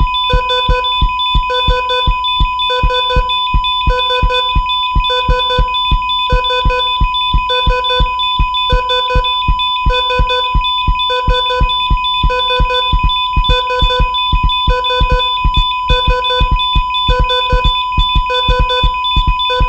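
Mixed heart-failure sound effect: a medical heart-monitor beep repeating evenly, nearly two a second, over a continuous high monitor tone, with low heartbeat thumps keeping time beneath.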